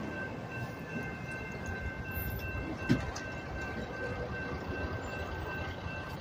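Railroad grade-crossing warning bells ringing steadily over a low rumble, with a single short knock about three seconds in.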